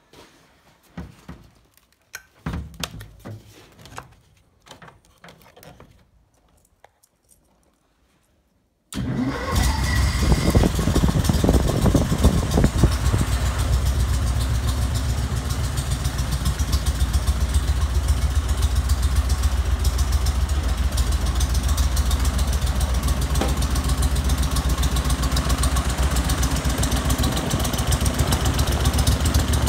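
Briggs & Stratton twin engine catching suddenly about nine seconds in and then running steadily with a strong low rumble, turning the aircraft's propeller, cold at −8 °C. Before it catches there are only a few scattered knocks and clicks.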